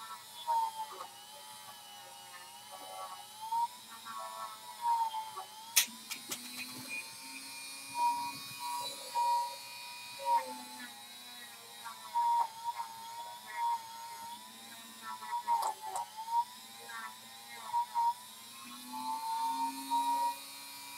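Small handheld rotary tool running with a steady high whine whose pitch sags and recovers again and again, with frequent short, louder bursts of grinding as it is worked against the piece.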